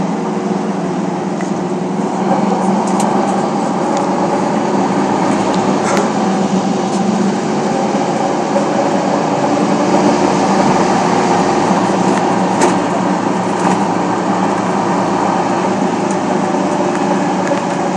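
Steady running drone of an airport apron bus, heard from inside the passenger cabin, with a constant low hum and a few brief rattles or clicks.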